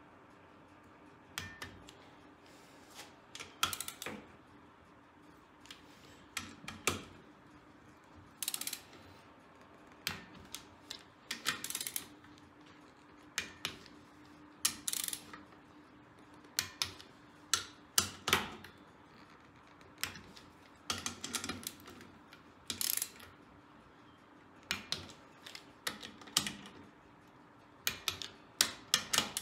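Ratchet wrench clicking in short, irregular runs as bolts are tightened and torqued down over a gasket on a Kohler Magnum 18 engine being reassembled.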